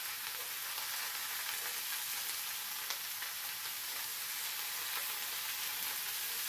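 Fennel slices sizzling in olive oil on a hot ridged grill pan: a steady frying hiss with a few faint ticks.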